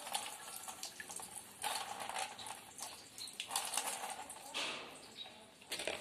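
A parrot bathing in its cage: water splashing in several short bursts, with a few light clicks.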